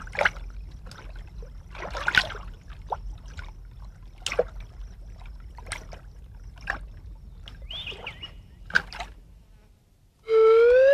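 Basilisk lizard running across the surface of water: irregular splashes and slaps of its feet. Near the end, after a brief hush, a loud held whistle-like tone with overtones starts, rising and then slowly falling.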